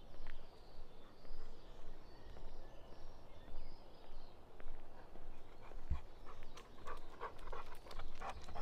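Dog panting in an even rhythm, a golden retriever. About six and a half seconds in, a run of quick sharp clicks joins it.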